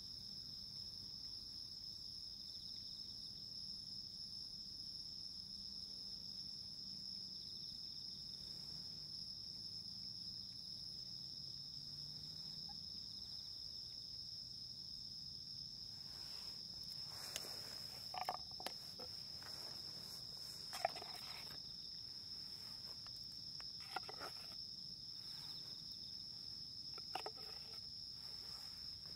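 Insects trilling: a steady, unbroken high-pitched trill throughout. In the second half come scattered soft clicks and knocks.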